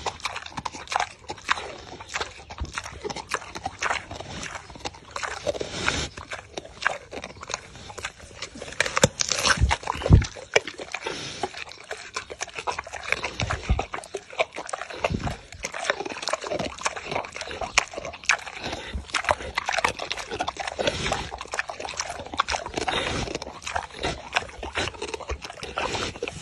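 A sow chewing melon held to her mouth: wet, irregular chomping and crunching, with a few louder bites along the way.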